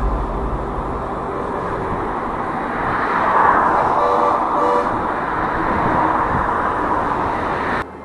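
Road and wind noise picked up by an SJ4000 action camera on a bicycle's handlebars while riding along a highway, with traffic passing alongside. The rush swells as a vehicle goes by about three seconds in, followed by a couple of brief horn-like tones, and cuts off suddenly near the end.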